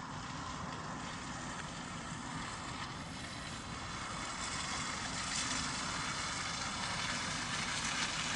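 Distant diesel passenger train running across a long iron-and-steel railway bridge: a steady rumble and hiss that grows slowly louder.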